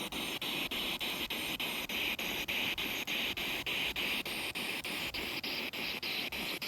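Spirit box (ghost box) sweeping through radio stations: a steady hiss of static broken by a click about five times a second as it jumps from station to station.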